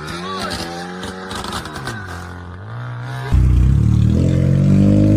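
Car engine running with a wavering, dipping pitch and some clatter. A little over three seconds in, a louder, steady low engine drone suddenly takes over.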